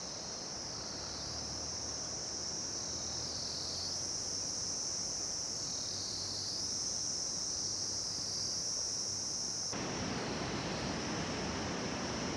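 A high, shrill chorus of insects, steady but swelling and easing every few seconds. About ten seconds in, a steady rushing noise joins it underneath.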